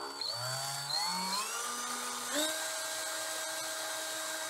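Electric drill spinning a 3D-printed cord maker to twist four strands of yarn together into a cord. Its motor whine climbs in pitch as it speeds up over about two seconds, then holds steady.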